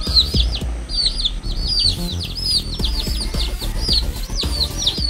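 Gamefowl chicks peeping continuously, a stream of short downward-sliding chirps several times a second from many chicks at once, over low rumble and faint knocks.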